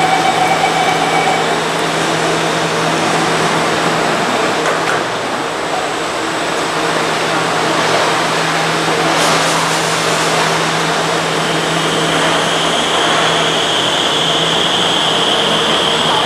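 Metro train at the platform with the steady hum of its onboard equipment, a short hiss about nine seconds in, then a steady high whine from its traction motors in the last few seconds as it pulls out of the station.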